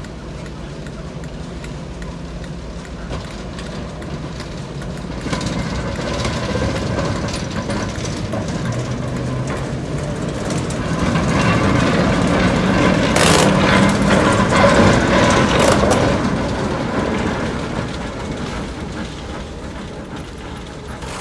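Class 08 diesel shunter's English Electric six-cylinder engine running. Its note rises and grows louder through the middle, then eases off again.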